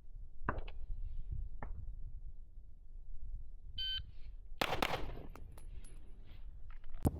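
A shot timer gives one short beep a little before the middle. About half a second later a 9mm pistol shot cracks and rings out, and another shot comes near the end.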